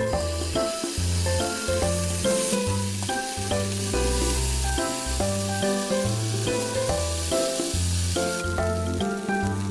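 Fried rice sizzling in a hot frying pan, the sizzle growing louder a couple of seconds in and easing near the end, over background music with a steady bass line.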